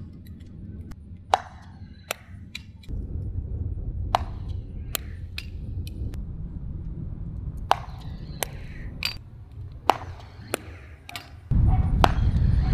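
Pickleball rally: a Gearbox Pro Power Fusion paddle hitting the plastic ball again and again, with muted pops at irregular intervals, roughly one every half second to two seconds, mixed with the ball bouncing on the court. A low rumbling noise runs underneath and gets much louder near the end.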